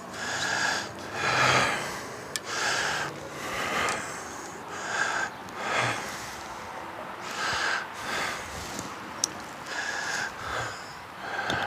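A person breathing heavily close to the microphone, one puff of breath about every second, with a couple of faint clicks.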